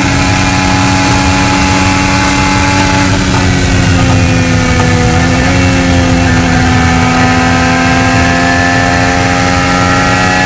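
Onboard sound of an IndyCar's 2.2-litre twin-turbocharged V6 running at high, nearly steady revs. The note dips slightly in pitch about three seconds in as the car goes through a turn, then climbs slowly again.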